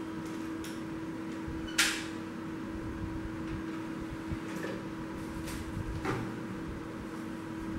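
Optical disc tray of an ASUS DRW-24D5MT DVD writer being loaded: a sharp plastic click about two seconds in as the disc is set on the tray, then softer clicks as the tray is pushed in and latches shut about six seconds in. A steady low hum runs underneath.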